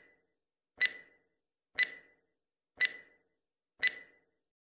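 Countdown timer sound effect: a sharp clock tick about once a second, each with a brief ringing tail.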